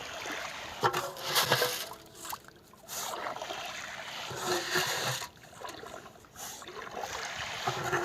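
Pond water splashing and sloshing in irregular bursts, loudest about a second and a half in and again around the middle.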